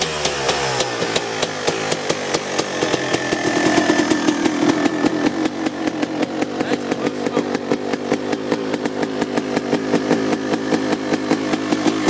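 Suzuki RM250 single-cylinder two-stroke motocross engine running on choke just after a cold start. Its revs fall back in the first second, then it settles into a fast, even popping beat, picking up slightly about four seconds in.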